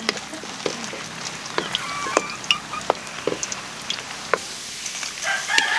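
Squid balls deep-frying in hot oil in a wok: a steady sizzling hiss with scattered crackles and pops.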